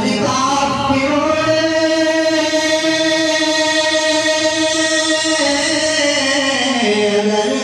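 A man singing an Urdu naat without instruments into a microphone, holding one long drawn-out note for about five seconds; near the end his voice falls in pitch and rises again.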